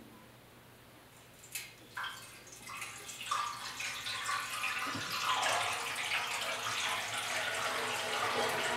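Vinegar glugging from a plastic jug into a Yamaha RS 100's steel fuel tank. A few clicks and knocks come first, then a steady pour from about three seconds in that grows louder as the tank fills. The tank is being filled to check for leaks after its pinholes were welded.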